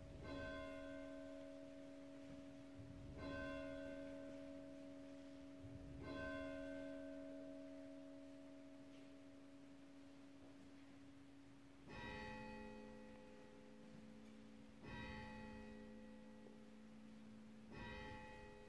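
Church bells tolling slowly. One bell is struck three times about three seconds apart, then a lower-pitched bell takes over for three more strokes at the same pace, each stroke ringing on until the next.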